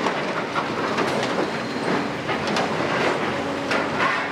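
Doosan DX255LC-5 excavator's six-cylinder diesel running while its demolition grab works into a pile of broken stone and tile rubble, with repeated clattering and knocking of the debris.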